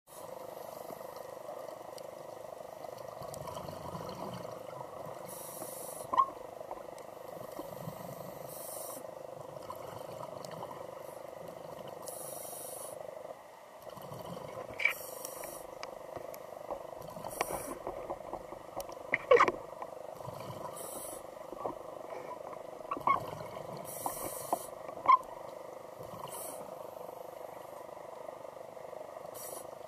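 Underwater sound of a scuba diver breathing through a regulator: a steady hum and hiss, with a burst of exhaled bubbles every three to four seconds. A few sharp clicks stand out.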